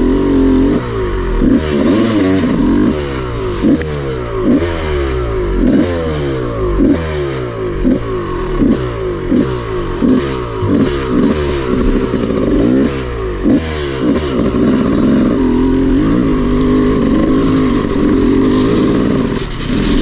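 Dirt bike engine being ridden hard, the revs rising and falling over and over as the throttle is worked, then holding steadier for the last few seconds.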